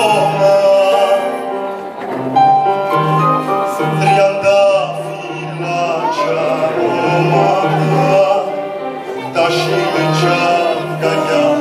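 Male soloist singing through a microphone over a mixed choir, with a keyboard or piano accompaniment playing an evenly repeating low line.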